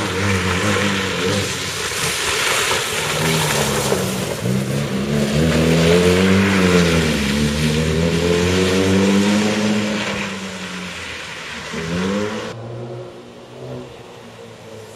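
Hatchback rally car's engine revving hard, its pitch rising and falling repeatedly through the gears, over a hiss of tyres spraying wet gravel and mud. Near the end the sound drops suddenly to a quieter, more distant engine.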